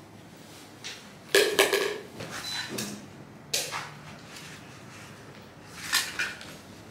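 Several separate clattering knocks of hard objects being handled and moved among stored clutter, the loudest cluster about a second and a half in, with further single knocks later.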